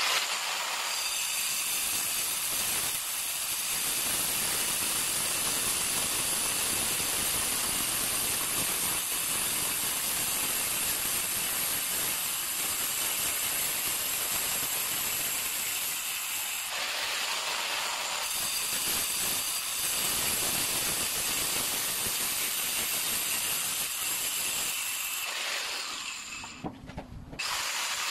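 Handheld angle grinder cutting through countertop tile, running steadily with a high whine over a gritty grinding hiss. It cuts out briefly near the end and starts up again.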